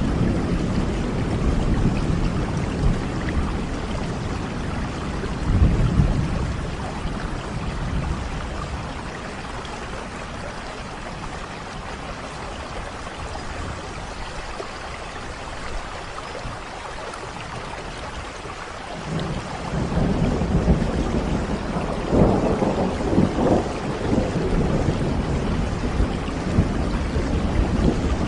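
Steady heavy rain with rolling thunder. The thunder rumbles at the start, fades to a quieter stretch of rain about a third of the way in, then swells again past the middle and keeps rolling.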